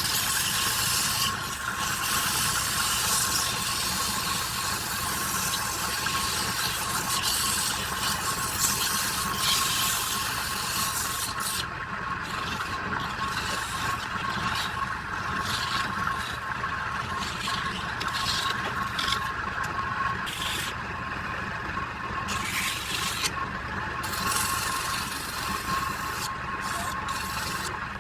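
Wood lathe running steadily with a whine and hum, while a tool scrapes against the spinning wood in uneven passes.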